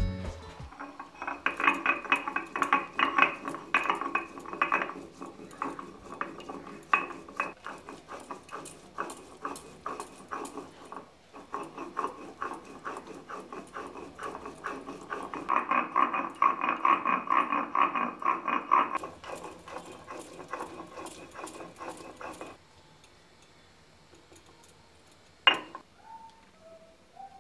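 Stone roller of a sil noda rocked and rubbed against its stone slab, grinding spices into a wet paste: a fast, uneven run of stone-on-stone scraping and clacking strokes that stops abruptly over 5 s before the end, followed by a single sharp knock.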